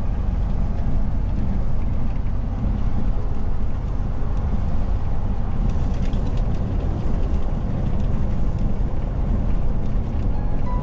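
Steady engine and road noise inside the cab of a loaded tractor-trailer truck driving along.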